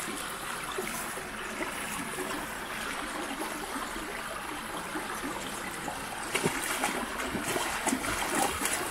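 Shallow rocky creek trickling steadily over stones, with a few small splashes in the water in the last few seconds as dogs wade in it.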